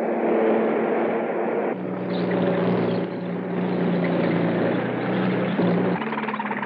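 Heavy tank engine running with a steady low drone. The drone's pitch changes abruptly about two seconds in and again near the end.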